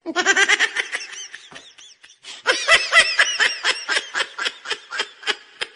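A person laughing hard in two long bouts of quick, high-pitched rhythmic "ha-ha" pulses, about five a second, the second bout longer and fading out.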